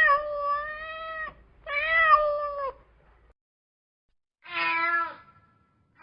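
Domestic cat meowing three times: a long, drawn-out meow, a second soon after, and a shorter third after a gap of nearly two seconds.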